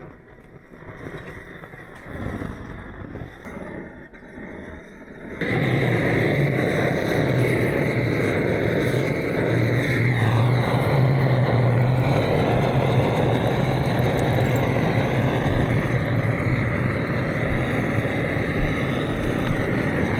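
A few seconds of faint, uneven handling sounds, then a vehicle's engine and driving noise cut in abruptly and run steadily with a low hum.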